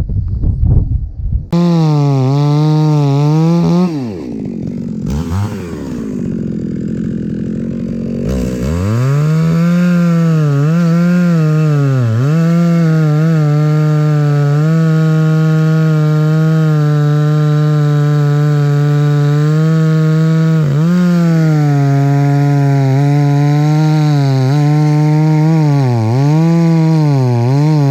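Two-stroke chainsaw running at high revs while cutting firewood, its pitch dipping again and again as the chain bogs in the cut. About four seconds in it drops off toward idle, then climbs back to full throttle for a long, steady cut.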